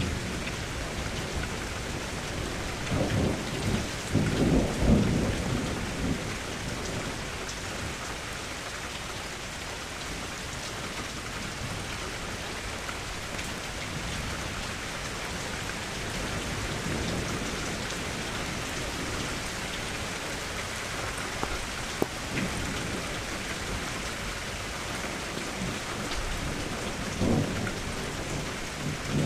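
Steady rain falling, with two low rolls of thunder: the louder one about three to six seconds in, another near the end.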